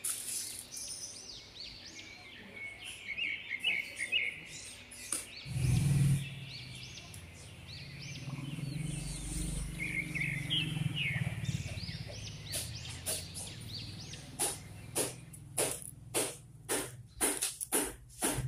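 Small birds chirping and twittering in short gliding calls, with a low rumble that swells about a third of the way in. From about two-thirds in, a run of sharp, evenly spaced taps comes in, about two a second.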